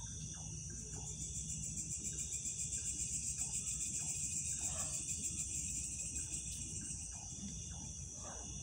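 Crickets and other insects chirping in a steady high-pitched chorus that pulses a few times a second, swelling louder in the middle.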